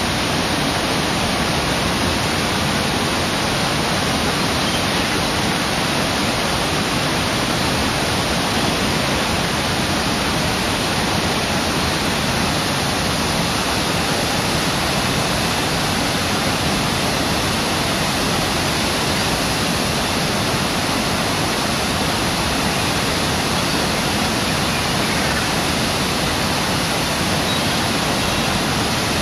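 Waterfall on the Brooks River: water pouring over the falls in a loud, steady, unbroken rush.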